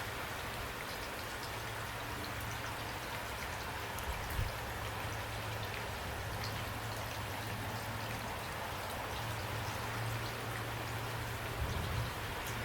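Steady rain: an even hiss with individual drops ticking through it, and a low hum that comes and goes underneath. A soft bump about four seconds in and another near the end.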